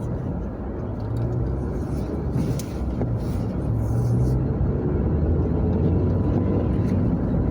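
Car engine and tyre noise heard from inside the cabin while driving: a steady low hum and rumble that grows a little louder about halfway through.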